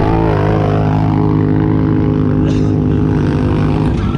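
ATV engine running hard with a steady drone. It revs up at the start and revs up again near the end.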